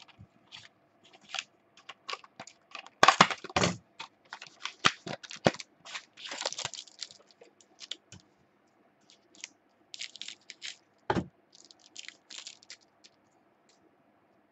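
Packs of football trading cards being handled and opened: the foil wrapper crinkling and tearing, and the cards clicking and sliding against each other in short, irregular bursts.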